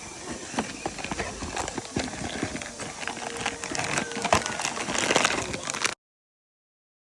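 Quick irregular clicks and knocks of metal tools and parts being handled, cutting off abruptly about six seconds in.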